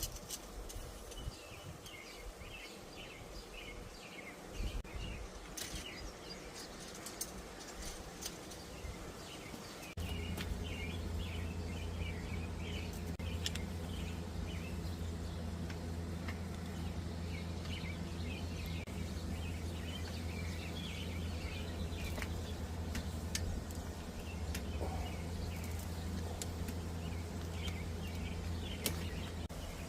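Small birds chirping over and over in the background, with a few light clicks. About ten seconds in, a steady low hum starts and carries on.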